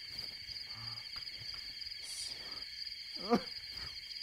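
Steady, shrill chirring of a night-forest insect chorus, like a jungle ambience track. A short voice sound breaks in about three seconds in.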